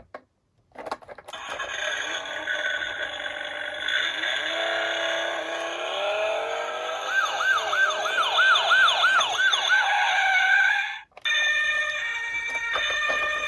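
Emergency-vehicle siren sounds: a layered electronic wail that turns, in the middle, into a fast yelp of about three rises and falls a second. It cuts off abruptly near the end, giving way to a different steady electronic tone.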